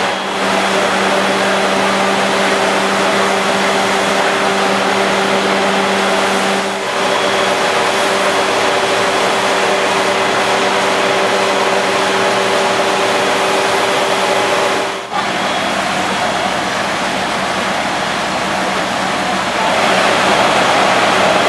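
Fire truck engines running steadily at high revs to drive the pumps feeding the ladder's water stream: a loud, even rush with a steady hum. There are brief breaks about 7 and 15 seconds in.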